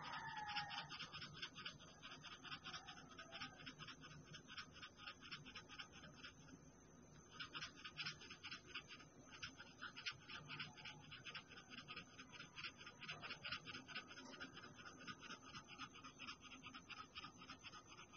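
Faint, rapid scratching of a wide flat paintbrush dragged back and forth over canvas, spreading oil paint in a steady rhythm of short strokes that pauses briefly about six seconds in.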